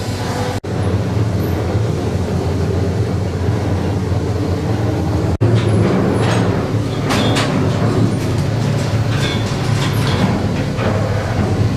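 Trawl winch running under power, its steel warp wire spooling through the level-wind gear, with a steady low machine hum. Metallic clanks and rattles from the wire and gear come through several times in the second half.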